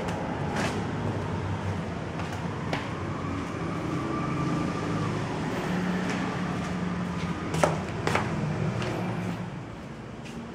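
Steady low background rumble with two sharp clicks about half a second apart, roughly three-quarters of the way through. The rumble drops off near the end.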